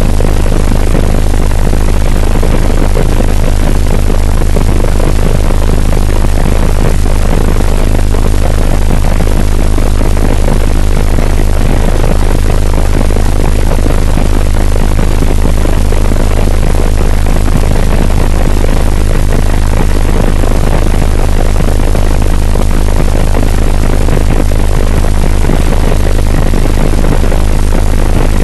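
Helicopter in flight, very loud and steady: a strong low hum under a wide rushing hiss, unchanging throughout.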